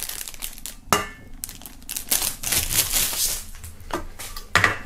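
Plastic wrapping film crinkling as items are handled, with a sharp knock about a second in that rings briefly, like a metal hip flask set down on a wooden table. A louder crinkle of the film comes near the end.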